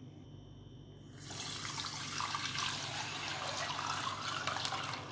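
Milk being poured from a glass bowl into a steel pot of hot butter-and-flour roux, a steady splashing rush that starts about a second in.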